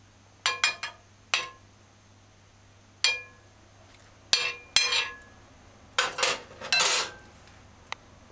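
Metal serving utensil clinking against a plate and an aluminium pot: about ten sharp, ringing clinks, some in quick runs of two or three.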